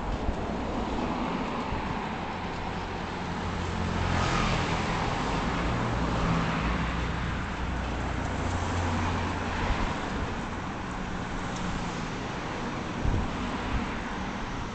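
Motor vehicle travelling along a street: a steady low engine hum with road and wind noise, and a short knock about thirteen seconds in.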